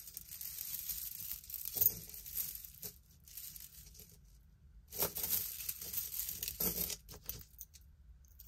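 Crinkling and rustling of jewelry packaging being handled, in two irregular spells with a quieter gap between them.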